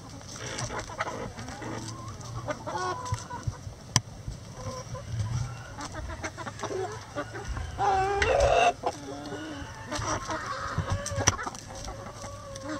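A flock of hens and a rooster clucking and calling as they crowd and peck at a hanging cabbage, with one louder, longer call about eight seconds in and a few sharp clicks.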